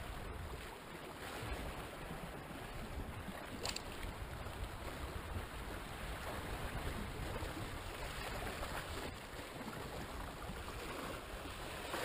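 Sea swell washing steadily against the rocks below, with a low rumble of wind on the microphone; a single short click about four seconds in.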